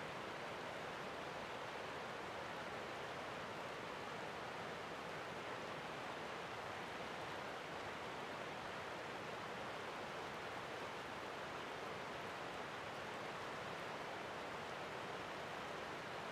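River water rushing over a low weir: a steady, even rush of white water with no breaks or changes.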